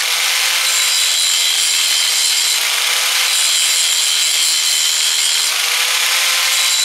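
Angle grinder grinding a broken bolt stub flat on a header exhaust flange: a steady, high grinding hiss with a thin whine from the spinning disc and motor.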